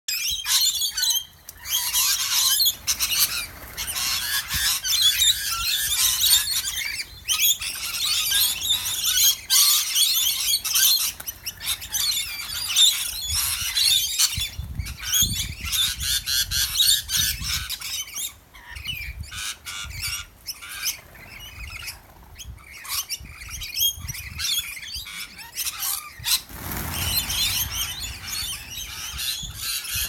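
A flock of rainbow lorikeets screeching and chattering, many birds calling over one another in a dense high-pitched din that thins somewhat in the second half.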